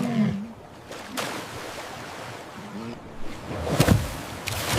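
Ocean waves and rushing water, with two brief sharp noises, one about a second in and one near four seconds, and a faint short call in between.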